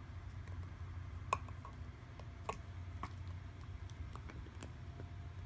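Scattered light clicks and taps of a small plastic cup-shaped cat toy as a Bengal cat bites it and paws it on carpet, irregular, the sharpest about a second in. A low steady rumble runs underneath.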